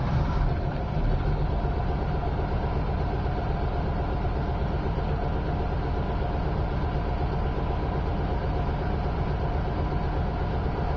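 Bucket truck's engine running steadily as its hydraulic boom is raised.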